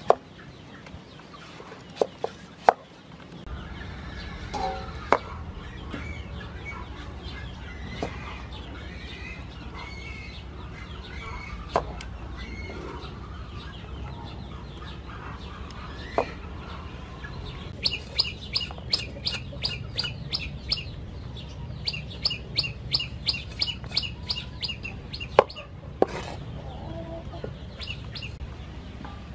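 Cleaver chopping green papaya on a wooden chopping board, single sharp knocks every few seconds. Birds chirp and chickens cluck in the background, and about two-thirds of the way in come two runs of rapid, even ticking, about eight ticks a second.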